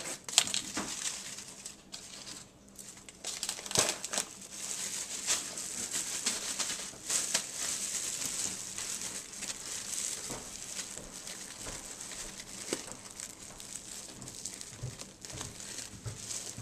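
A thin clear plastic bag of ridged potato chips crinkling and rustling with scattered sharp crackles as it is handled, gathered up and twisted shut.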